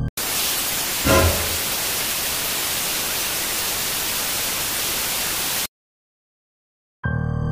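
Loud TV-static hiss, with a short swooping sound effect about a second in; the hiss cuts off suddenly, and after about a second of silence synth music starts near the end.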